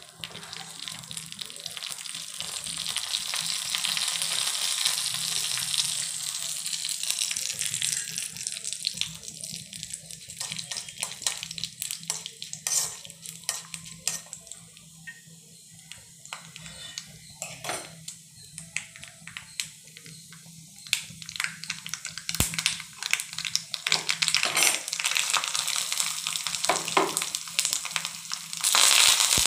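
Mustard and cumin seeds sizzling and spluttering in hot oil in an iron kadai for a tempering, with scattered pops and crackles and a spoon scraping as they are stirred. Near the end the sizzle jumps suddenly louder as more ingredients go into the oil.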